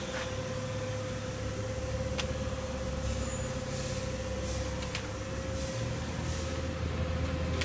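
Steady machinery hum: a low rumble under one constant mid-pitched whine, with a few faint clicks.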